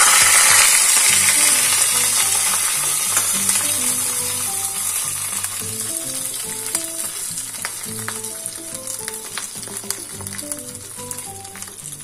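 Hot tempering oil with mustard seeds, curry leaves and dried red chillies sizzling as it is poured onto beetroot in curd: loud at first, then slowly dying away, with scattered crackles.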